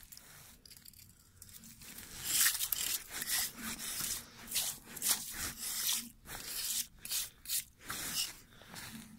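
A metal ice scoop scraping and crunching ice chips and slush out of an ice-fishing hole, in a run of rough strokes starting about two seconds in.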